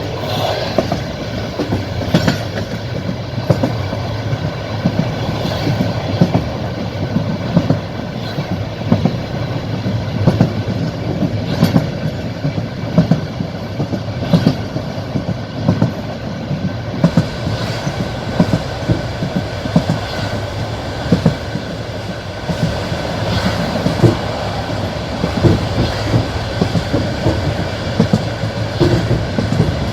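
Passenger train wheels clattering over the rail joints (clickety-clack) as the train runs, a steady rumble broken by many short, irregular knocks.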